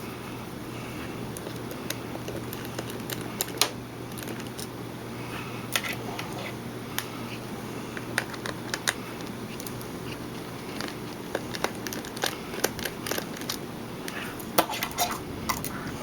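Scattered small clicks and taps of a small screwdriver and fingers working on a compact digital camera's plastic body while its small screws are taken out, over a low steady hum.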